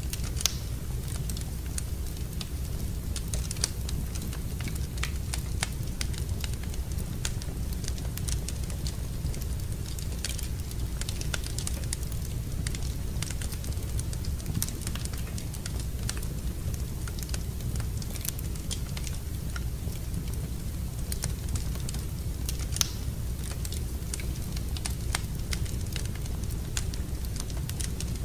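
Fire crackling in a fireplace: scattered sharp pops and crackles over a steady low rumble, with now and then a louder pop.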